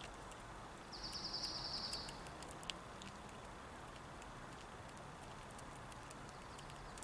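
A fox squirrel nibbling seeds close by: small dry clicks throughout, with one sharper click a little under three seconds in. About a second in, a high, rapid trill lasts just over a second over a steady outdoor background hiss.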